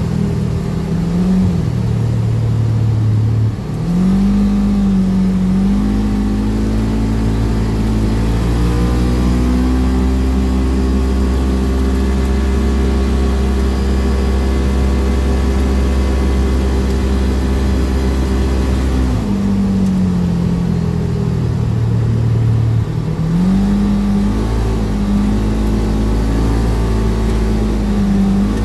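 Vehicle engine running under way, its pitch dipping and rising in the first few seconds and again later on, and holding steady for a long stretch in between.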